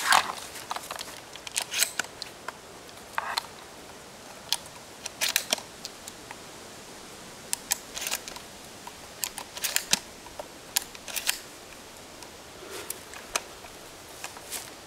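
Sharp metallic clicks, singly and in pairs every second or two, as shells are loaded into and handled in a nickel-plated RIA Carina shotgun.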